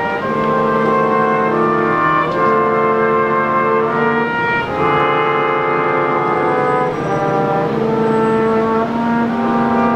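Brass quintet of two trumpets, French horn, trombone and tuba playing a slow piece in held chords that change every second or two.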